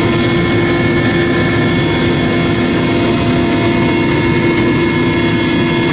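Helicopter turbine and rotor noise heard from aboard: a loud, steady drone with several held tones that do not change.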